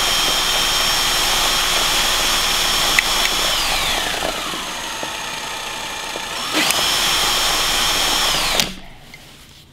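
Cordless drill spinning a homemade axial flux alternator's saw-blade magnet rotor, giving a steady motor whine. The pitch drops as the drill slows about three and a half seconds in, stays low for about two seconds, jumps back up to full speed, and stops near the end.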